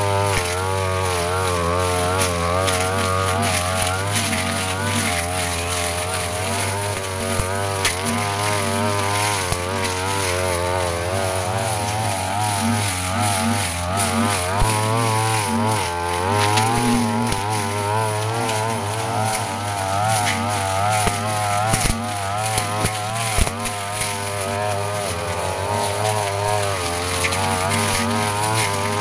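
A Yasuka backpack brush cutter's engine runs continuously as it cuts grass and weeds, its pitch wavering up and down as the cutting head meets the vegetation. Scattered sharp ticks sound over the engine.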